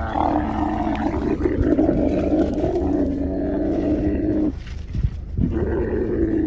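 Dromedary camel bellowing as it is pulled down to kneel, a long call that breaks off about four and a half seconds in and starts again a second later.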